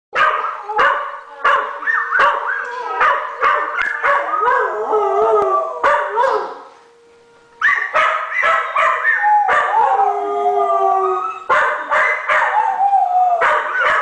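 Two dogs, a blue heeler and a golden retriever–collie mix, howling together at a tornado siren, the long wavering howls broken by sharp barks and yips, with a short lull just before the middle. A faint steady siren tone sounds beneath the howls in places.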